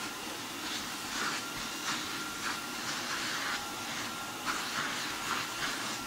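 A 1987 Hoover Sensotronic S3360 cylinder vacuum cleaner runs with a steady high whine. Its small nozzle is drawn back and forth over a fabric sofa cushion, and the suction hiss surges and eases with each stroke.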